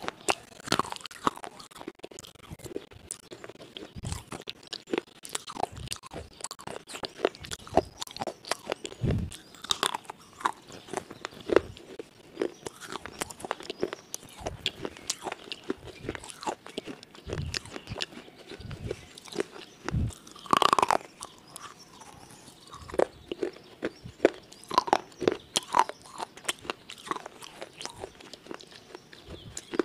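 Close-miked ASMR eating: crunchy food bitten and chewed with wet mouth sounds and irregular crackles right at the microphone. About twenty seconds in there is a short louder hum-like voice sound.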